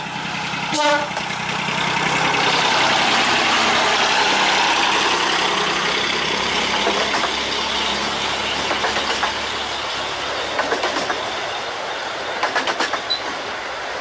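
A 15-inch gauge miniature railway train passing close by, with one short toot of the locomotive's horn about a second in. After that comes the steady running of the locomotive and its open carriages, with the wheels clicking over the rail joints in the second half.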